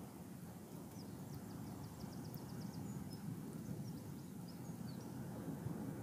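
Steady low outdoor noise on an open seashore. A small bird chirps faintly and high above it: a quick run of chirps between one and two and a half seconds in, then a few scattered chirps.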